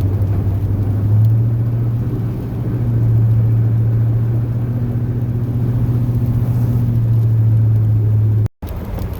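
Engine of a Chevrolet plow truck with an 8.1-litre Vortec big-block V8, heard from inside the cab as a steady low drone while driving. The hum firms up about a second in, and the sound cuts out for a moment near the end.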